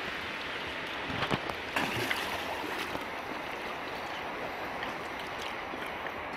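Water sloshing and swishing steadily as a person moves chest-deep through a muddy pond, with a few brief splashes about one and two seconds in.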